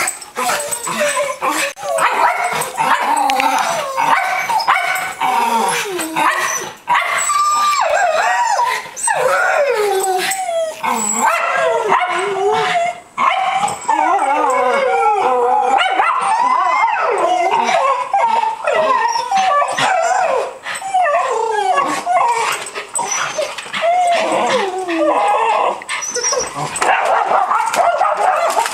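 Several dogs whining and yipping excitedly, with some barks, their cries overlapping and sliding up and down in pitch almost without pause. They are worked up over a squirrel seen through a glass door.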